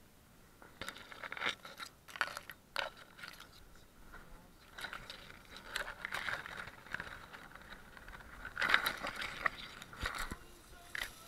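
Irregular scraping and crunching with scattered clicks at uneven intervals, loudest in a cluster about nine seconds in.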